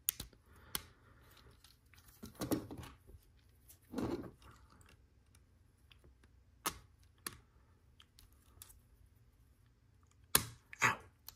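Plastic LEGO Technic pieces clicking as they are handled and pressed together, scattered sharp clicks with softer rubbing between them and two louder clicks near the end.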